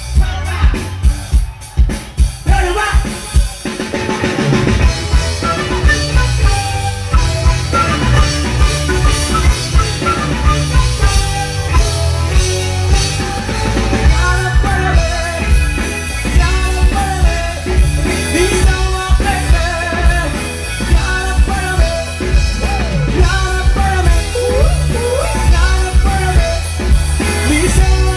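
Live band music. For the first few seconds there are only regular drum strikes, about three a second. The full band then comes in, with drum kit, bass and electric guitar, and a singer's melody on top.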